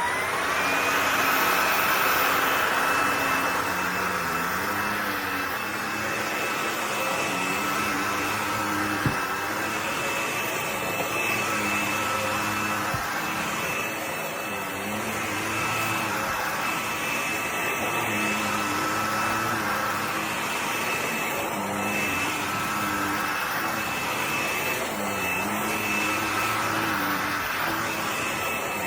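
BISSELL PowerClean cordless stick vacuum running: its motor spins up with a rising whine, then holds a steady high whine over a rushing hum that swells and dips every few seconds. There is a single sharp click about nine seconds in.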